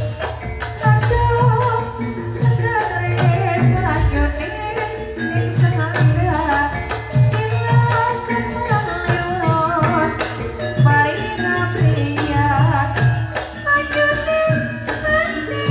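Javanese gamelan music for a lengger dance: hand-drum strokes keep a steady beat under pitched melodic instruments while a singer's voice winds over the top.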